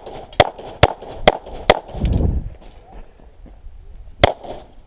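Pistol shots fired during a USPSA stage: four quick shots a little under half a second apart, then a low rumble and a pause of about two and a half seconds, then one more shot near the end.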